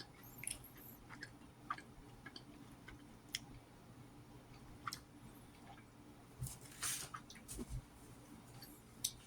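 A person chewing food close to the microphone, with scattered short mouth clicks and a slightly longer noise about seven seconds in.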